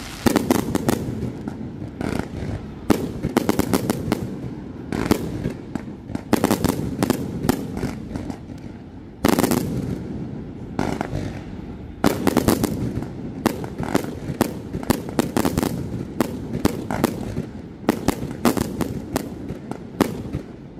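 Fireworks display going off: a continuous series of sharp bangs and deeper booming bursts, with runs of rapid crackling reports packed between them.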